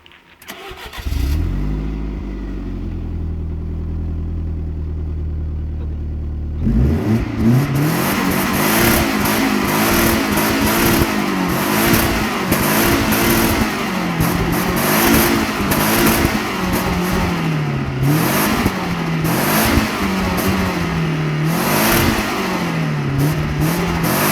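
Car engine starting about a second in and settling into a steady idle, then revved over and over from about seven seconds in, its pitch rising and falling every second or so.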